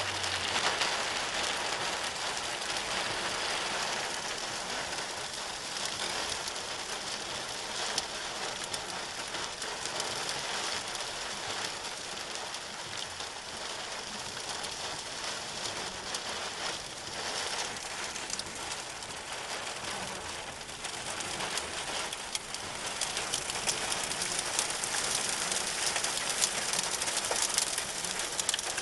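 Wind-driven sand pelting a car's windshield and body in a sandstorm, heard from inside the car as a steady dense hiss of striking grains. It grows louder over the last few seconds.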